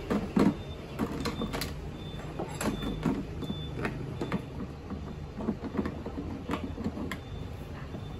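Handling noise from assembling a child's ride-on electric motorbike: the hollow plastic body is flipped and knocked against a tiled floor, with clicks and scrapes as a metal rear axle rod is pushed through it. Scattered knocks, the loudest about half a second in, over a steady low hum.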